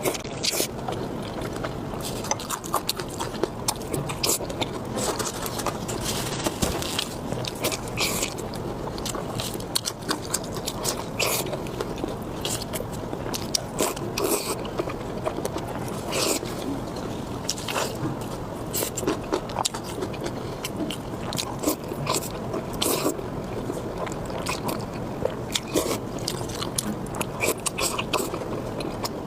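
A person biting and chewing food up close, with a dense, irregular stream of short wet clicks and crunches.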